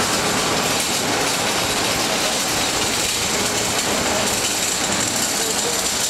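Passing train: a steady noise of wheels running on rails, with no breaks.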